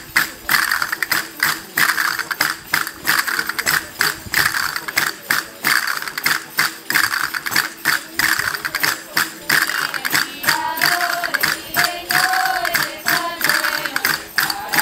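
Folk-dance hand percussion clacking in a steady rhythm, about three strokes a second, with a bright jingling hiss behind it. Voices singing join in from about ten seconds in.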